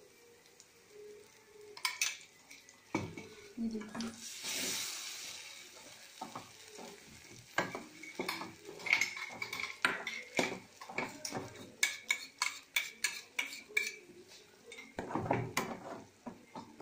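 A ladle stirring and scraping thick coconut chutney in a kadai, with frequent clinks and knocks against the pan and a brief sizzling hiss about four seconds in.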